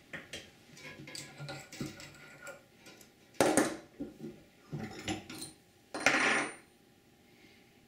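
Small metal hand tools and a steel nail set clinking and scraping against a bench vise while an eye is twisted into steel leader wire. Light clicks and taps at first, then three louder scraping clatters about three and a half, five and six seconds in.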